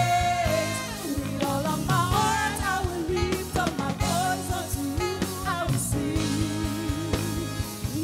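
Live gospel praise music: singers sing over a band of keyboards, acoustic guitar, bass guitar and drum kit.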